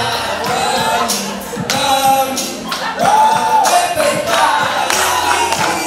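Music with singing voices over a percussion beat of repeated sharp hits.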